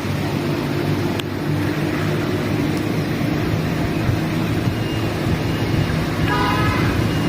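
Steady low motor hum over wind noise on the microphone, with a brief higher-pitched sound about six seconds in.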